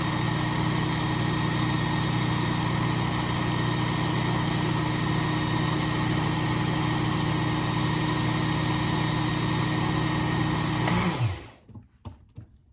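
Work Sharp Ken Onion Elite belt sharpener with the blade grinder attachment running steadily, fitted with a 12,000-grit micromesh belt. It is switched off about eleven seconds in, and the motor's pitch falls as it spins down and stops.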